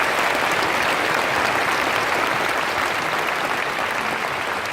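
A large audience applauding, a dense steady clapping that eases off slightly toward the end.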